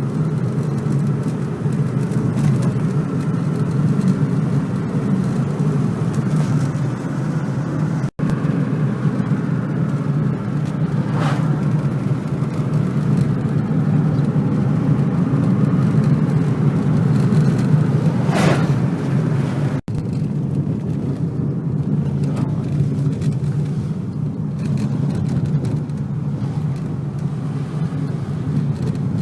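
Car driving on a road: a steady low rumble of engine and tyre noise, with two brief whooshes and two short moments where the sound cuts out, about eight and twenty seconds in.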